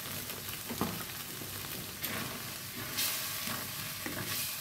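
Coconut-milk sauce with minced pork sizzling in a nonstick wok as it simmers down, with a spatula stirring and scraping through it. It is a steady sizzle with a few louder scrapes about halfway through and near the end.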